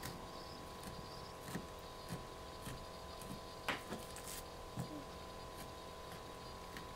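Kitchen knife scoring the sinew along the fatty edge of pork loin slices, its blade knocking lightly on a wooden cutting board: a string of faint, irregular taps, the loudest a little under four seconds in.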